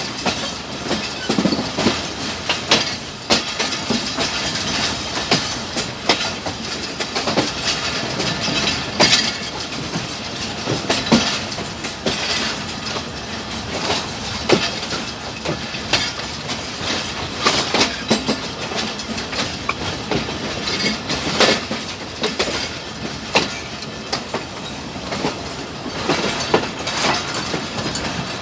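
Passenger train rolling on steadily, its wheels clattering over rail joints in a continuous irregular clickety-clack.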